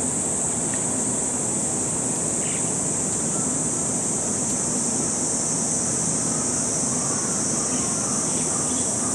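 Cicadas shrilling in a steady, unbroken high-pitched drone, with a low steady hum from an air-conditioner's outdoor unit underneath.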